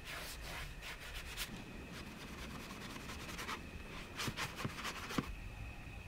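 Short, scratchy rubbing strokes of a watercolour brush on paper, in a quick run at the start and another from about four seconds in, with a few light taps near the end.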